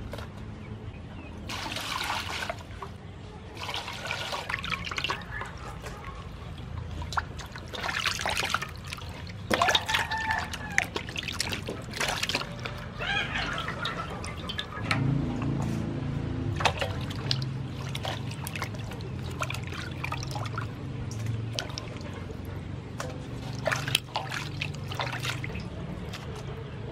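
Water splashing, sloshing and dripping in a metal basin as a piece of raw beef is washed by hand, with pours of water now and then. From about halfway a low steady hum runs underneath.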